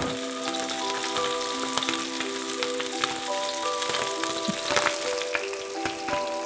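Hot oil sizzling and crackling in a frying pan under two herb-crusted salmon fillets just out of the oven, with many sharp pops. Soft background music with held notes plays along.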